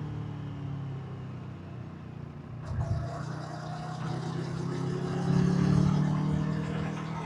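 Kawasaki Versys 650's parallel-twin engine and exhaust under riding. The engine note falls as the bike slows and dips briefly about two and a half seconds in, then rises and grows louder under acceleration before easing near the end.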